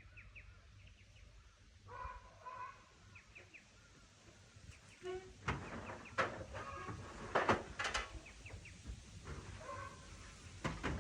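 Birds chirping in short, high calls, with a run of sharp knocks and clatters about halfway through.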